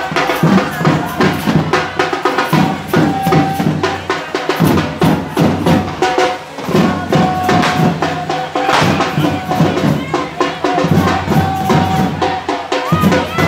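Correfoc drums beating a fast, dense rhythm mixed with the crackle and bangs of hand-held fireworks.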